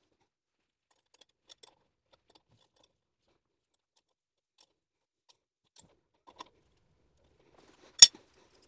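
Small metal clicks and clinks of toilet closet-bolt hardware (bolts, washers, nuts) being handled and fitted into the toilet flange, with one sharp, louder clink about eight seconds in.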